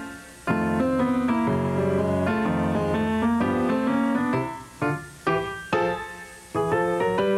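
Instrumental keyboard music with a piano sound: chords and a melody line, with short dips between some phrases before the next chord is struck.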